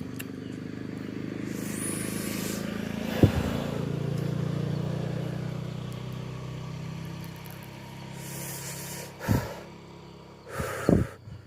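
A motor vehicle passes on the road, its engine and tyre noise swelling to a peak about four seconds in and then fading away. A sharp click sounds about three seconds in, and two short loud noises come near the end.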